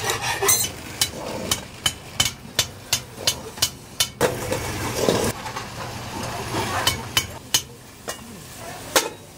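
Hammer striking metal, about three evenly spaced blows a second for the first four seconds. Then comes a short noisy scraping stretch, and after it slower, scattered knocks over a steady low machine hum.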